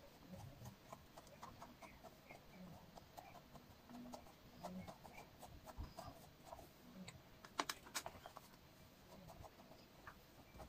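Faint, scattered soft taps and small clicks of hands pressing pizza dough out into a metal baking tray, with a few sharper clicks about two-thirds of the way through.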